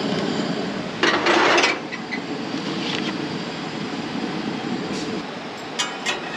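Camp stove burner running with a grilled ham and cheese sandwich frying in the pan, a steady rushing hiss. About a second in there is a brief louder burst of noise, and near the end a few light clicks.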